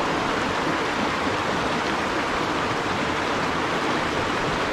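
Shallow mountain stream rushing steadily over rocks and small riffles.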